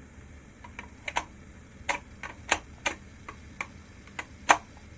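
Sharp hard-plastic clicks and knocks as a Makita 18 V tool battery is slid onto a plastic battery adapter. About a dozen irregular clicks, the loudest near the end, when the battery latch catches and locks.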